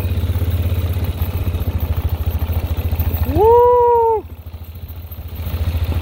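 Four-wheeler engine running with a steady low putter. About three seconds in comes one long call, louder than the engine, that rises and then holds for just under a second. The engine is quieter for a moment right after it.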